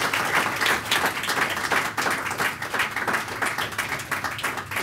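Audience applauding, a dense run of many hands clapping that thins slightly near the end.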